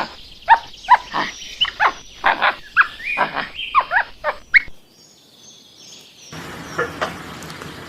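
Gibbon calling: about a dozen loud, quick whoops, mostly rising in pitch, over roughly four seconds, then a fainter call about seven seconds in.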